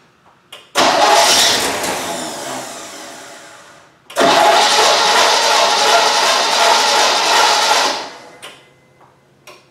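Rebuilt 350 small-block Chevrolet V8 cranked on its starter in attempts to start it: a first burst loud at once that fades over about three seconds, then about four seconds of steady cranking that cuts off, with another attempt starting near the end. The engine does not fire and keep running because fuel has not yet filled the carburetor bowl.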